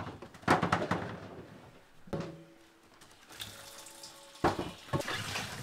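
Apples knocking into a stainless steel bowl in a kitchen sink, the bowl ringing briefly after one knock, then tap water running into the bowl of fruit from about three and a half seconds in.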